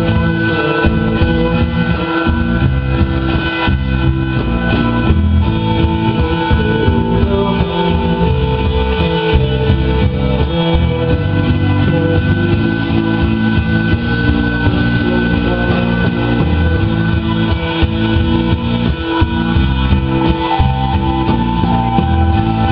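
Live rock band playing an instrumental passage: electric guitar over bass and drums, with held tones that fit the band's synthesizer, and no singing.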